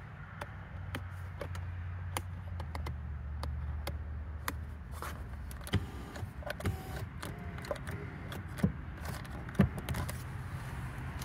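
Electric power seat motor running in short stretches as the seat switch is worked, with clicks from the switch and seat trim, over a low steady hum.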